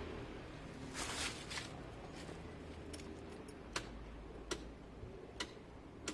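A brief rustle of wires being handled, then a run of faint sharp clicks, about one every three-quarters of a second, as bare leads of a scooter's new LED number plate light are touched against the old wiring to test it.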